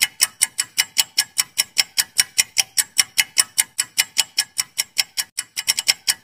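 Countdown-timer sound effect: rapid, even clock ticking at about five ticks a second. A little past five seconds in there is a brief gap and a stumble of quicker ticks.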